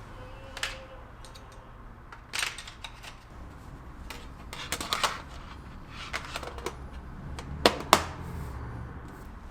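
Scattered light clicks and taps of small objects being handled, with two sharp clicks close together about three-quarters of the way through, over a low steady hum.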